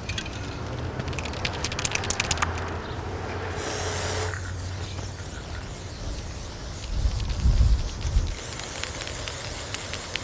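Aerosol spray-paint can: a quick clicking rattle as it is shaken, then the hiss of paint spraying from about three and a half seconds in. A low rumble, the loudest sound, comes about seven seconds in.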